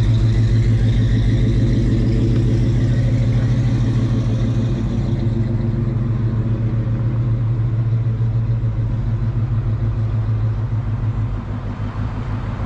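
LS V8 engine of a Chevrolet C10 pickup running with a steady low exhaust rumble as the truck drives off, dropping away a little near the end.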